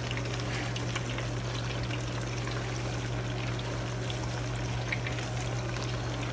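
Chicken wings deep-frying in hot canola oil in a stainless steel pot: a steady bubbling sizzle, with a few light clicks as metal tongs turn the wings against the pot. A steady low hum runs underneath.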